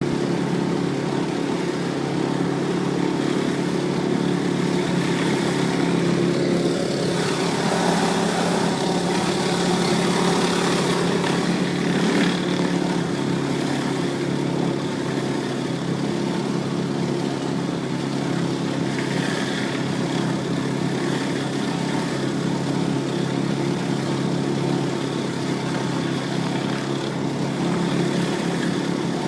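Pressure washer's small petrol engine running steadily, with a continuous hiss of high-pressure water spray over it.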